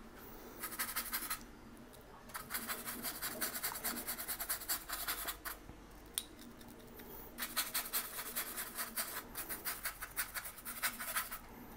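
Small paintbrush scrubbing and stippling paint onto a styrene foam sheet: quick scratchy strokes in three spells, with short pauses between them.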